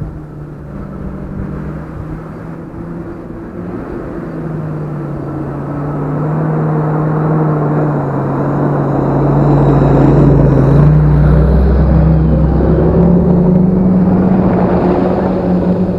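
Large farm tractor's diesel engine pulling a dump trailer, approaching and driving past close by: the engine note grows steadily louder, peaking as the tractor and trailer go by, with a deep rumble for a few seconds as they pass.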